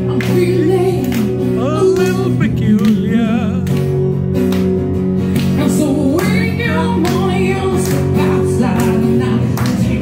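A woman singing live into a microphone, holding notes with vibrato, accompanied by an acoustic guitar.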